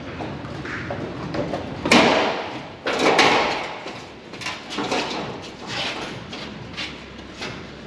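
Car being pushed by hand up a car trailer's metal loading ramps: clanks, knocks and rattles from the ramps and trailer as the wheels roll on. Two loud rushes of noise come about two and three seconds in, followed by a string of smaller knocks and clicks.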